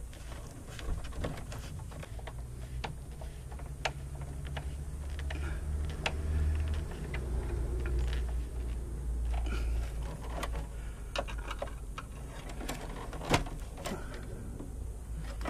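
Irregular small clicks and scrapes of a screwdriver and a stiff #6 copper ground wire being worked into the ground bar of a breaker panel, over a low steady rumble.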